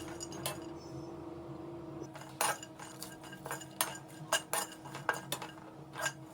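Spatula clinking and scraping in a pan as peanuts and whole spices are stirred while dry-roasting: irregular knocks and scrapes, few at first and more frequent after about two seconds, over a faint steady hum.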